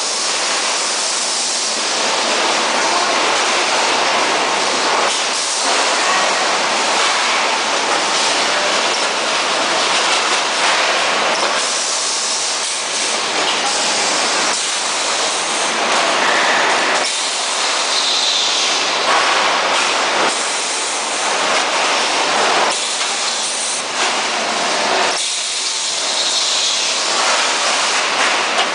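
Steady, loud hissing and rumbling machine noise, with shifting swells and now and then faint clicks, from a spot welding machine at work.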